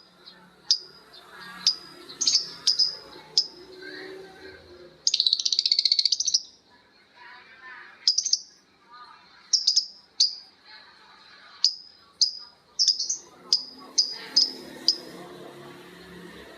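Lovebirds calling back and forth with short, sharp, high chirps, one of them breaking into a long rapid chattering trill (the 'ngekek' call) about five seconds in.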